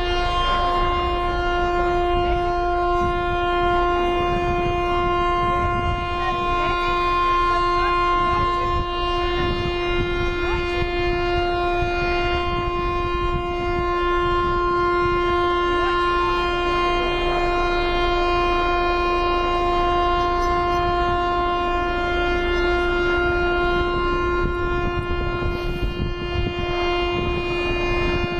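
A warning horn sounding one long, unbroken note at a single pitch. It is the pre-blast warning before a tower-block demolition implosion, heard over steady outdoor background noise.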